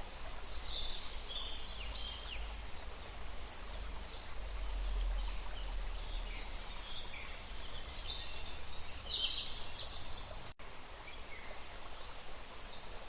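Outdoor ambience: scattered short, high bird chirps over a low steady rumble.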